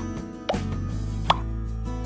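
Background music with steady held tones, with two short pop sound effects about half a second and a second and a half in, as on-screen like and subscribe icons pop up.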